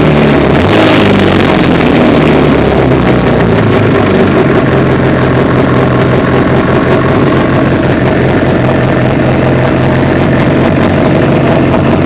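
1999 Arctic Cat snowmobile's 700cc liquid-cooled two-stroke twin running, with a brief rise in revs about a second in, then settling to a steady idle around 1,000 rpm. The seller lists a knocking noise in this engine.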